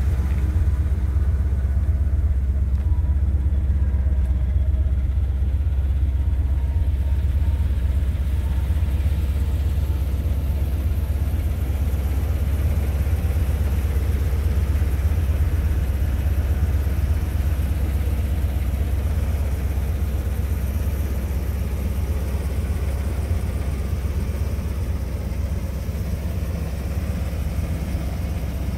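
1981 Chevrolet Corvette C3's 350 cu in V8 with a Rochester four-barrel carburettor idling steadily.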